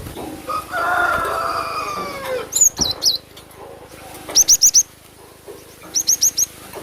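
Cinereous tit (glatik batu) calling: short high chirps in quick runs of three or four notes, three times. In the first two seconds a longer, lower falling sound is louder than the chirps.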